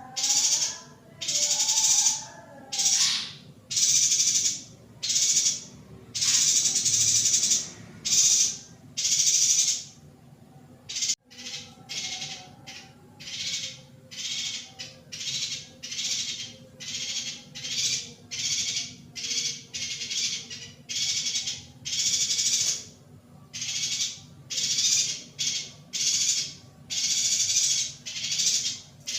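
Female yuhina calling: a string of short, high chirps, about one a second at first, then after a brief break about eleven seconds in, quicker, about two a second.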